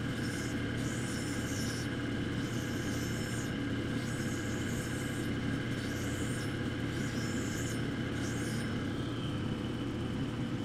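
Lapidary cabbing machine running steadily while a dichroic fused-glass cabochon is ground on its wet diamond wheel. The hissy grinding comes in about six passes of a second or so each and stops near the end, while the motor hums on.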